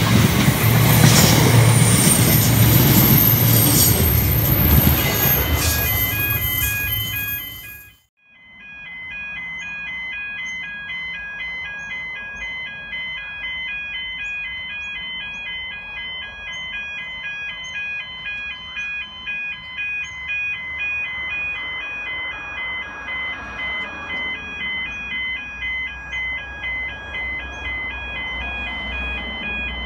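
Freight train of steel-coil flat wagons rolling past, wheels and couplings clattering with a high steady squeal, cut off abruptly about eight seconds in. A simple high, stepping melody of background music runs from about five seconds in to the end.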